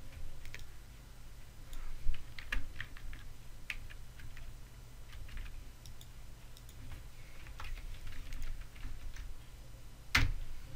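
Typing on a computer keyboard: irregular, spaced-out keystrokes, with one louder click near the end, over a low steady hum.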